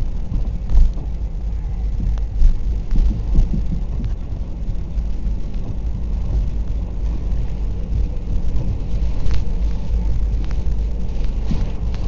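Wind buffeting the camera microphone: a steady low rumble, with a few knocks of handling or gusts in the first few seconds and again after about nine seconds.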